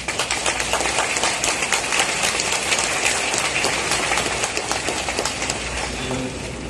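Large stadium crowd applauding, a dense, steady clatter of many hands clapping that eases off slightly near the end.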